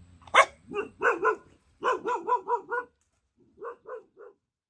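A dog barking in short, pitched yaps, about a dozen in three groups: a sharp first bark, a quick run of barks, then three more near the end.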